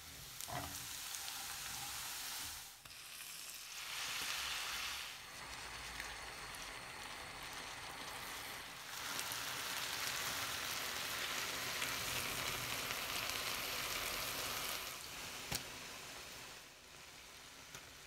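Chopped onions frying in oil in a pan, a steady sizzle, stirred with a silicone spatula. The sizzle gets louder and softer a few times, and there is a single sharp click near the end.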